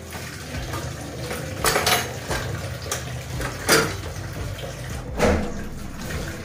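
Tap water running into a stainless steel sink during hand dishwashing, with several clinks and clatters of dishes, about two, four and five seconds in.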